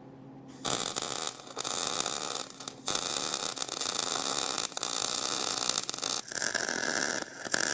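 Welding arc crackling and hissing, starting about half a second in, with a few brief breaks as the arc stops and restarts.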